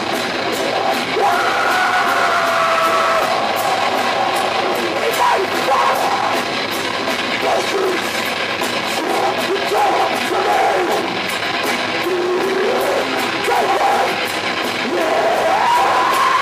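Live heavy metal band playing: distorted electric guitar, bass and a driving drum beat through stage amplifiers, loud and dense throughout.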